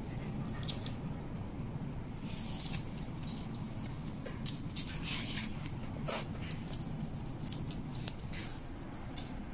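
Dogs moving about on a wooden floor: scattered light clicks and jingles from their claws and collar tags, over a steady low rumble.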